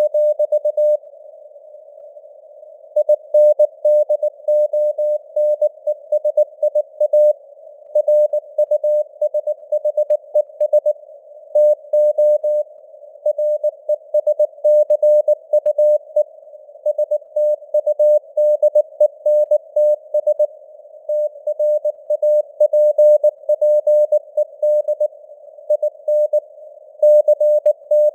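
Morse code (CW) sent at 19 words per minute as a single keyed tone of about 600 Hz, in quick dots and dashes with short pauses between words. Under it runs a narrow band of simulated radio hiss, and the signal strength varies as if fading on the air (QSB).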